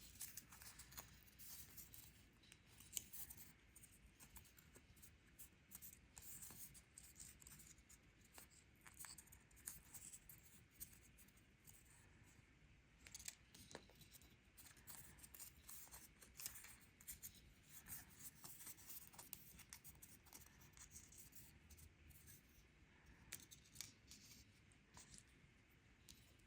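Faint rustling, scraping and small clicks of cardstock pieces being handled and pressed together while glued onto a paper card.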